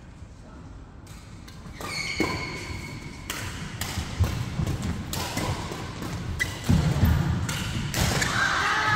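Badminton rally: rackets striking the shuttlecock in a string of sharp cracks, with shoe squeaks and thudding footsteps on the court mats.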